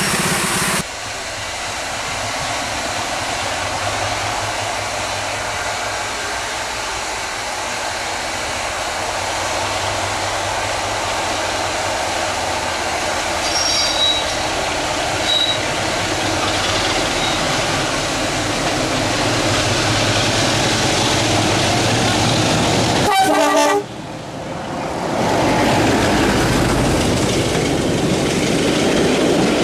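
Running noise of a moving train heard from an open carriage window: wheels on rail with wind and rumble. About 24 s in, the sound breaks off suddenly, then grows louder as another train's coaches rush past close alongside on the adjacent track.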